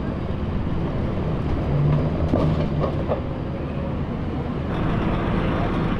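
Boat engine running steadily at low speed, with a constant low hum, while the boat works against the current toward the dock.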